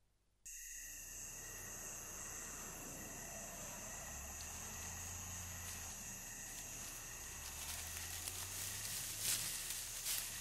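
Crickets chirring steadily in grass, starting about half a second in.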